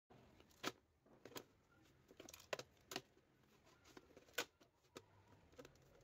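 Faint, scattered light clicks and knocks, about half a dozen, irregularly spaced: small handling noises on a work table.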